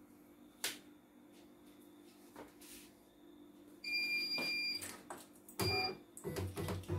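CNY E900 embroidery machine powering on: a click, then an electronic beep of about a second as the screen lights up, and a second, shorter beep at the same pitch as the menu appears.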